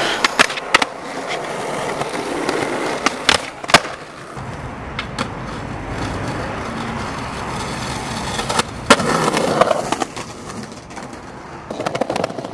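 Skateboard wheels rolling on concrete, broken by several sharp wooden clacks as boards are popped and land.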